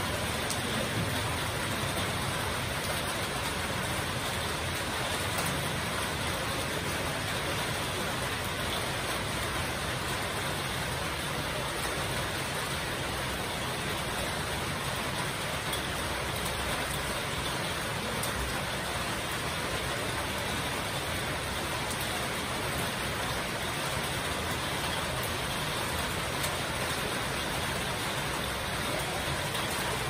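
Heavy rain falling steadily onto corrugated metal roofs, a continuous even hiss with no breaks.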